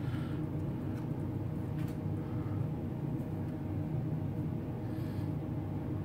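Steady low machine hum with no speech, and a faint click about two seconds in.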